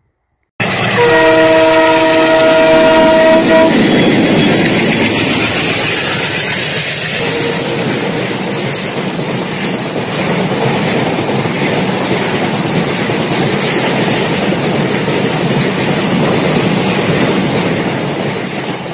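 Train horn sounding a chord of several notes for about three seconds, starting suddenly about half a second in, followed by the steady rush and clickety-clack of a train running past.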